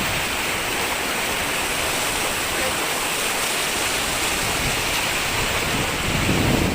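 Mountain river rushing steadily, a constant loud roar of flowing water, with a brief louder surge near the end.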